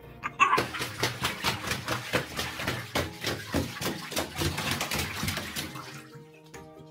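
Rapid clicking and scrabbling, about four or five sharp clicks a second, as a small dog moves about on the hard surface of an empty bathtub; the clicks fade away near the end.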